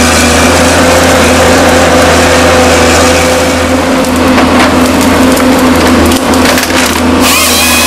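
Tracked forestry harvester's engine running steadily under hydraulic load, with wood cracking and splintering as its Log Max harvester head grips and fells small birch stems. The cracks come thickest in the second half.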